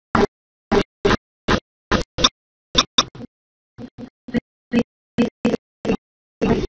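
A woman's voice through a microphone, chopped into short fragments of a fraction of a second with dead silence between them, about two a second: the live stream's audio dropping out.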